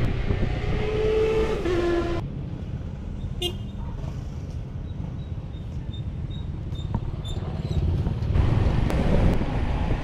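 Motor scooter riding through city traffic: steady engine and road rumble, with a held pitched tone in the first two seconds that steps down in pitch, and the sound changing abruptly twice where the clips are cut together.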